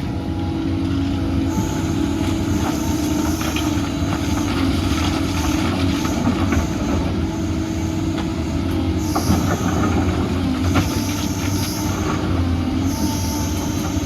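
Doosan DX250 tracked excavator working: the diesel engine runs steadily under load, with a high-pitched hydraulic hiss or squeal coming and going several times.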